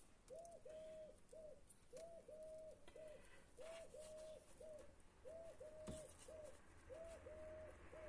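A dove cooing, a three-note phrase of short, long, short notes repeated about five times at a steady pace. A couple of faint taps come in between.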